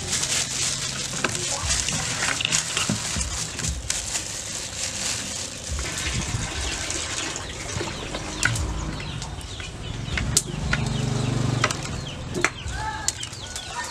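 Hands rubbing marinade into a raw whole duck over a plastic bowl: wet squelching and slapping of the skin and meat, with a plastic glove rustling.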